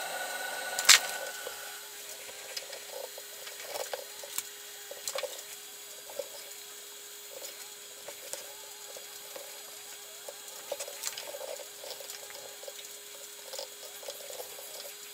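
Hand-stitching leather with waxed thread: the thread rasps and rustles as it is drawn through the stitch holes, with scattered small clicks and one sharp click about a second in. A faint steady hum runs underneath.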